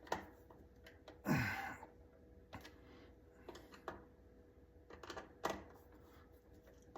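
Sparse light clicks and taps of hand tools on a plastic USB wall outlet as it is straightened and fastened into its wall box, with one longer, louder noise a little over a second in.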